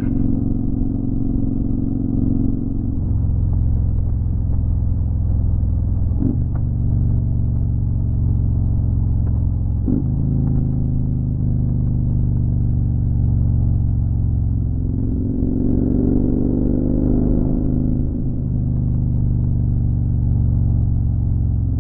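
Motorcycle engine running steadily at road speed, heard from the bike itself. Its note breaks briefly twice, then rises and falls over a few seconds in the later part.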